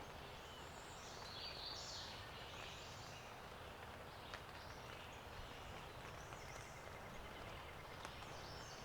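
Quiet woodland ambience: a steady faint hiss with distant songbirds calling, a single small click about four seconds in, and a faint rapid trill near the end.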